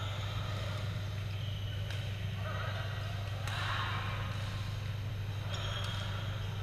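Indoor badminton hall ambience: a steady low hum under a few sharp shuttlecock hits from nearby courts and muffled voices, loudest about three and a half seconds in.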